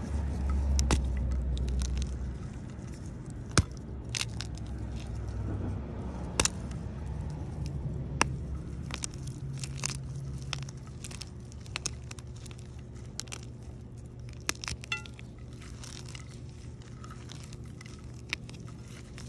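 Soap-soaked gym chalk crushed and crumbled by hand: soft crunching and scraping, with sharp cracks every few seconds as chunks snap. A low rumble runs through the first couple of seconds.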